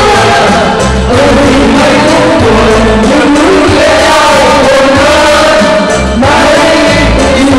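Music: a song with a singing voice over a bass line.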